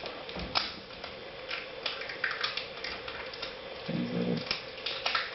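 Adhesive tape being peeled off the back of a laptop LCD panel: irregular crackles and clicks.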